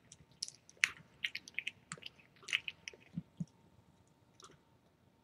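Calico mother cat eating wet food from a metal bowl: faint, irregular wet chewing and smacking clicks that stop about three and a half seconds in.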